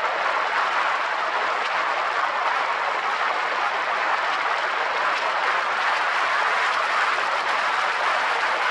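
Severe wind noise: air rushing over the 360 camera's microphone at road speed, a steady loud hiss with no letup.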